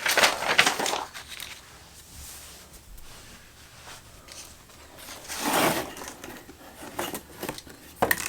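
Paper instruction sheet rustling as it is handled, in a few bursts, the loudest about five and a half seconds in, with a few light taps near the end.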